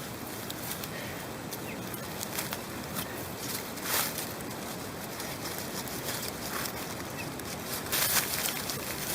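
Deuce of Spades 7075 aluminium backcountry trowel stabbing and scraping into hard, solid ground, with irregular short scrapes and knocks and a longer, louder scrape near the end.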